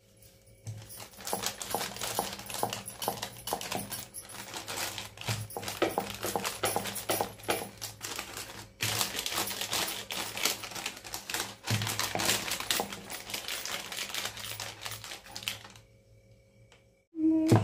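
Thin plastic sheet crinkling and crackling under hands and a wooden rolling pin as a soft date mixture is pressed and rolled flat: a dense run of small clicks, with a brief pause about nine seconds in, dying away near the end.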